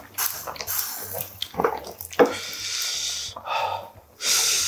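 Chopsticks stirring noodles and seafood in a pot of simmering ramen broth: irregular wet squishing and bubbling, with two short sharp sounds around the middle and a loud breathy hiss near the end.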